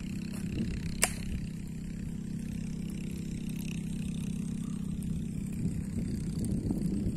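Steady low engine drone, with one sharp click about a second in.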